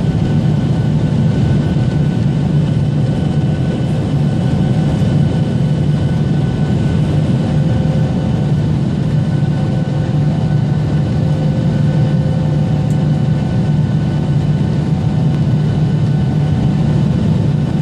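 Steady, loud jet engine and airflow noise heard inside an airliner cabin as it climbs after takeoff, with a few faint steady whines above the low rumble.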